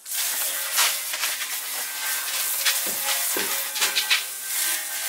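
Water from a hose spraying onto a freshly sanded car bumper to rinse it: a steady hiss and splatter that starts suddenly, with a few brief louder splashes as the stream moves.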